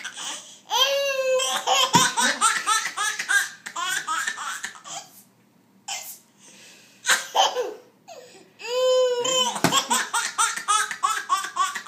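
Baby laughing hysterically: two long fits of rapid, high-pitched laughter, the second starting about two-thirds of the way in, with a short pause and a couple of brief laughs between them.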